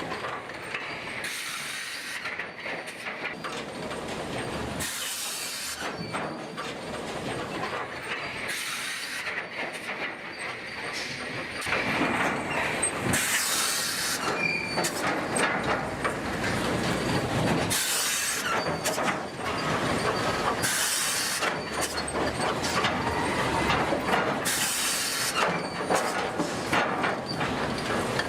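Heavy machinery running in a log yard, with metallic squealing and a short burst of hiss about every four seconds. It grows louder about twelve seconds in.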